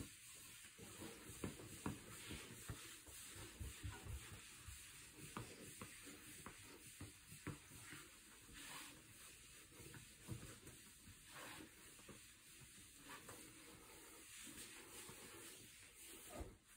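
Faint rubbing of a dry microfibre cloth being wiped over a quartz countertop, with a few small soft taps.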